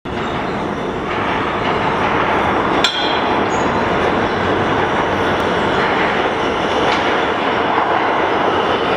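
An R160A subway train approaches through the tunnel into the station, with the steady noise of its wheels running on the rails. A single sharp clank comes about three seconds in.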